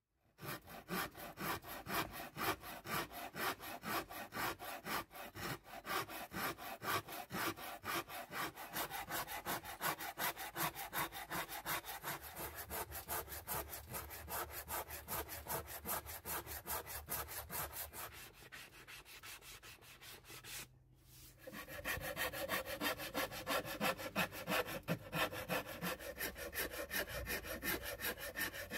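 Hand rasp scraping wood in rapid repeated strokes as it shapes the edge of a guitar body. The strokes break off briefly about 21 seconds in, then start again.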